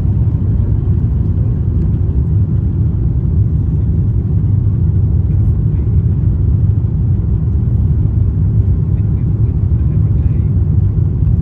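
Cabin noise inside an Airbus A350-900 during takeoff: its Rolls-Royce Trent XWB engines at takeoff power, a loud, steady, deep rumble as the jet leaves the runway and climbs.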